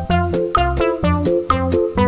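Background music: an upbeat instrumental tune with a steady beat and a stepping bass line.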